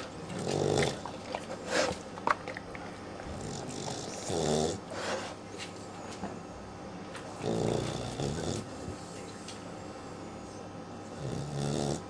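A 12-week-old Clumber spaniel puppy snoring in its sleep, each breath a rough snore, coming about every three to four seconds.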